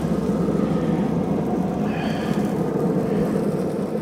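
Steady low rumbling background noise, with a faint short high note about halfway through.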